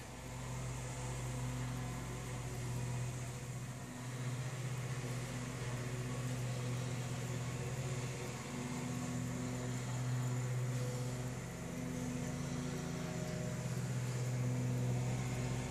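Riding lawn mower's engine running at a steady drone while mowing, its hum swelling and easing slightly as the mower moves about the yard.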